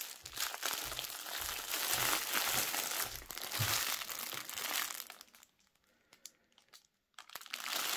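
Clear plastic wrapping crinkling as a rolled diamond-painting canvas in a plastic bag is handled and turned. The crinkling stops for nearly two seconds a little after five seconds in, then starts again near the end.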